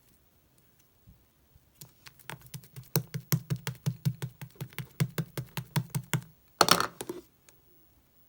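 Fingers pressing and poking slime, giving a quick run of sharp sticky clicks and pops, about five or six a second. Near the end comes one louder, longer crackling squelch.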